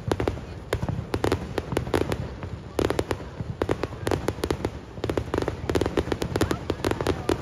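Fireworks display going off close by: rapid, irregular volleys of sharp bangs and crackles, several a second in clusters, over a steady low rumble.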